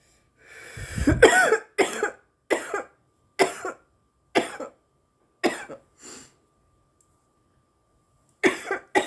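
A woman coughing on marijuana smoke in a coughing fit: a long first cough about a second in, then single coughs about once a second, a pause, and a quick pair of coughs near the end.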